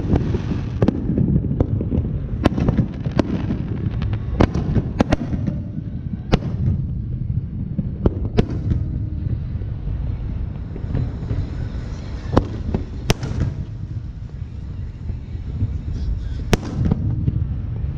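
Fireworks going off: about a dozen sharp bangs at irregular intervals over a continuous low rumble of bursts.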